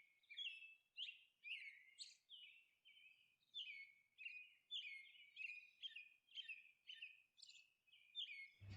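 Faint bird chirping: short, separate chirps, many falling in pitch, about two a second.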